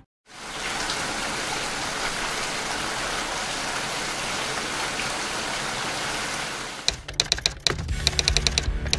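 Steady rain falling, an even hiss, that cuts off about seven seconds in. It gives way to a fast run of sharp clicks with a low hum beneath them.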